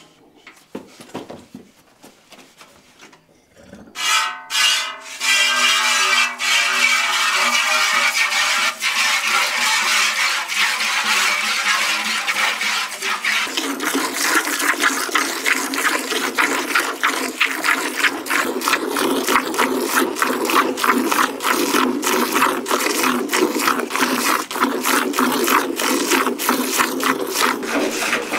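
A loud rushing sound starts about four seconds in, then gives way to quick, regular scraping strokes, several a second, that keep going.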